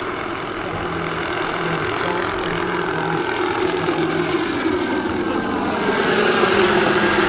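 Turbine-powered RC scale model Bell AH-1 Cobra helicopter in flight: the steady whine of its model gas turbine over the rotor noise, growing louder in the last couple of seconds as it passes closer.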